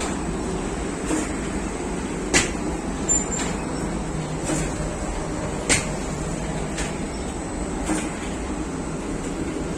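Bakery machinery running with a steady drone and a thin high whine, while sharp knocks and clacks from the work land irregularly, roughly once a second.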